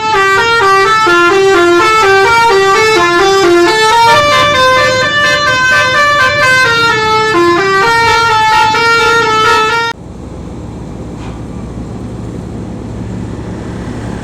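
Bus telolet horn, a multi-tone air horn, playing a quick melody of short stepping notes. It cuts off abruptly about ten seconds in, leaving steady engine and road noise that grows louder.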